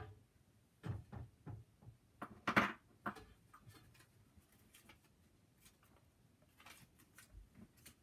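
Small desk items being handled and set down: a few scattered clicks and knocks, a cluster about a second in and the loudest about two and a half seconds in, with fainter knocks later.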